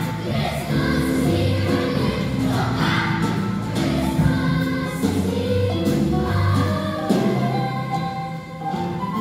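Children's choir singing a holiday song in unison over a steady instrumental bass line.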